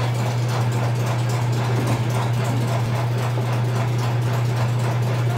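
Steady low hum of machinery running in a bakery kitchen, unchanging throughout.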